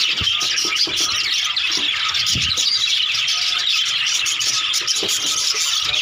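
A flock of budgerigars chattering and warbling together, a dense, unbroken mass of small high calls.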